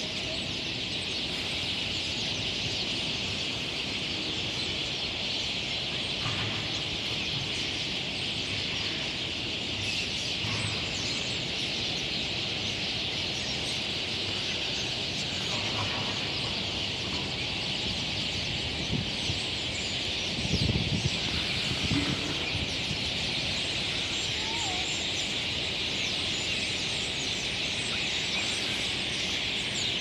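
Dense, steady chattering of a huge flock of starlings swirling overhead in a murmuration, with a brief low rumble about two-thirds of the way through.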